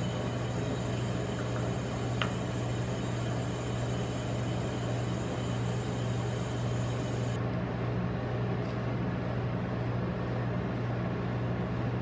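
Rolled-ice-cream machine's refrigeration unit running with a steady low hum, with one light tap about two seconds in.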